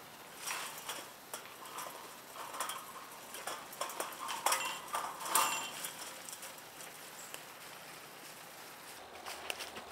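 A hiker's footsteps on concrete bridge slabs littered with dry leaves, with rustling as he steps onto wire netting and pushes into brush. The steps are irregular and grow fainter after about six seconds as he moves away.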